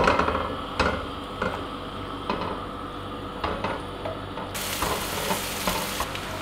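Sliced onions sautéing in oil in a nonstick wok, a silicone spatula stirring and scraping through them with a few soft knocks against the pan over a light sizzle. About four and a half seconds in, the sizzle becomes a stronger, steady hiss.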